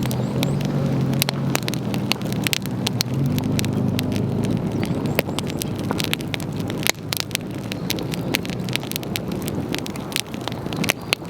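Wood campfire crackling, with frequent irregular sharp pops and snaps. A low engine hum sits under it for the first few seconds, then fades away.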